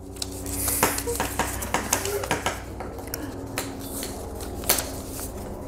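Small folded paper ballots being unfolded and handled, giving a run of quick crinkles and sharp clicks.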